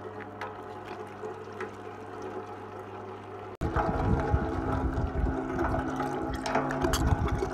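Electric meat grinder running with a steady motor hum as it minces chunks of boneless chicken. About halfway through the sound breaks off abruptly and comes back louder, with a rougher low rumble and a few sharp clicks as pieces are fed down the steel throat.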